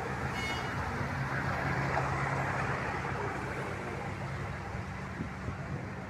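Street traffic: vehicle engines running with a steady rushing noise, and a brief high-pitched tone about half a second in.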